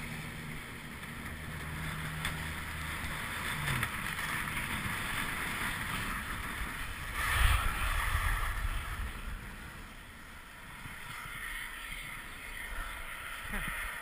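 Skis sliding and scraping over packed snow, a steady hiss, with a louder rush of wind on the microphone about halfway through. A low hum fades out in the first few seconds.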